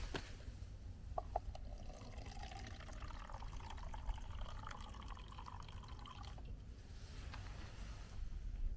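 A drink running from the tap of a stainless-steel dispenser into a plastic cup, its pitch rising as the cup fills, stopping about six and a half seconds in. A couple of clicks sound about a second in.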